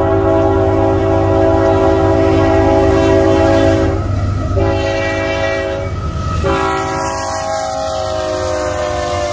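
Union Pacific freight locomotive's air horn blowing a chord in three long blasts, with short breaks about four and six seconds in; the pitch of the last blast sinks slightly. The low rumble of the moving train runs underneath.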